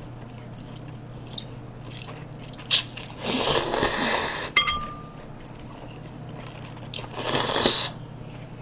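A person slurping cold naengmyeon noodles and broth from a bowl: one long slurp about three seconds in and a shorter one near the end. Between them comes a single sharp clink that rings briefly.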